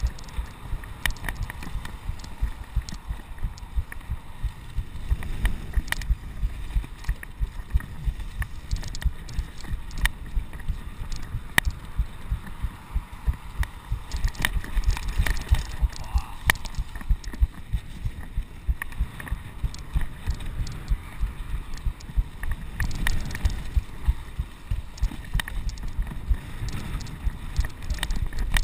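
Mountain bike riding fast over a rough dirt trail, heard from a chest-mounted camera: a steady low rumble of wind buffeting the microphone, with frequent sharp knocks and rattles as the bike hits bumps and rocks.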